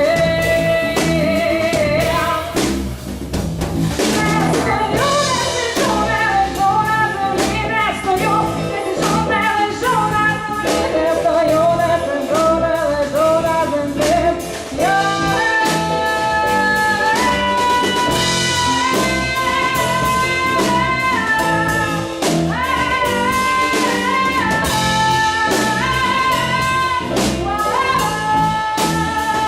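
Live band music with drum kit and guitar under a long-held, gliding melody line.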